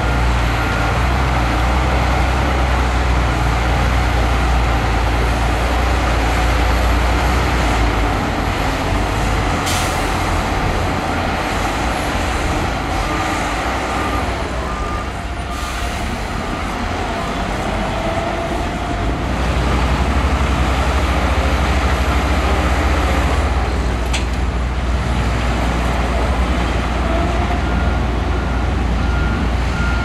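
Heavy diesel engines of a Shantui crawler bulldozer and dump trucks running under load, with a deep rumble that eases about eight seconds in and comes back strongly about twenty seconds in. A few short sharp hisses cut through, and a faint intermittent beeping sounds near the start and the end.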